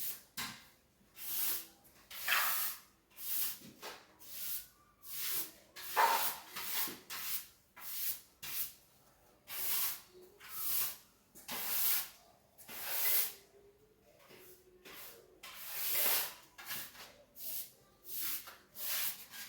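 A series of short rubbing strokes, roughly one a second and unevenly spaced, from cleaning by hand.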